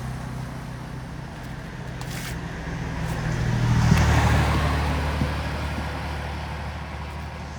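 A motor vehicle going past on the road: its engine drone grows louder to a peak about four seconds in, drops in pitch as it passes, and then fades away.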